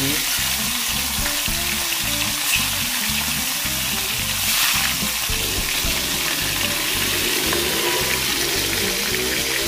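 Pieces of salted snakehead fish frying in a pan of hot oil: a steady sizzle that swells briefly about halfway through.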